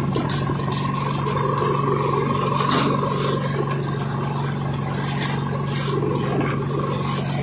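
Boat's inboard engine running steadily, with irregular scraping and rustling as a nylon net full of small fish is hauled over the gunwale and shaken out onto the deck, and scattered sharp slaps and clicks.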